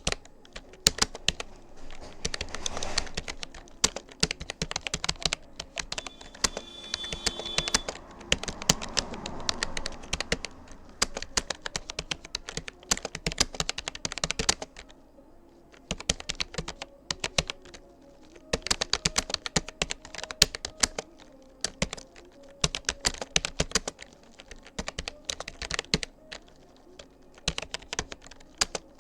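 Typing on a Rapoo computer keyboard: rapid runs of keystroke clicks with short pauses between bursts, the longest pause about halfway through.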